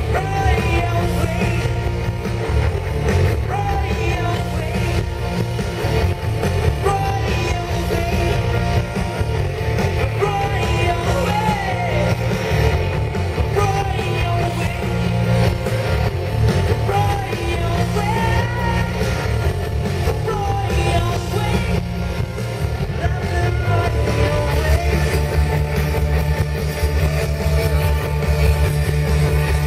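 Live rock band playing loudly with electric guitars, bass and drums, and a sung vocal line over them, as picked up by a camera in the audience.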